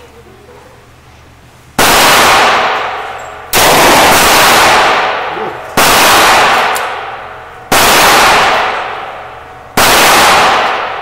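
.357 snub-nosed revolver fired five times at a slow, steady pace about two seconds apart, starting about two seconds in. Each shot is a loud crack followed by a long ringing tail.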